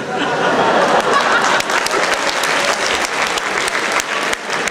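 Audience applause, starting suddenly and going on steadily.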